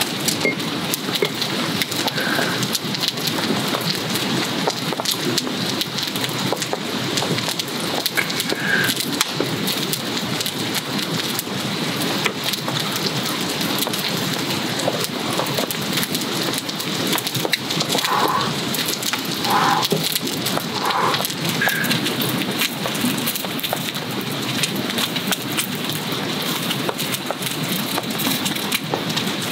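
Steady rain falling, thick with small ticks and crackles, and a few faint short high notes in the middle.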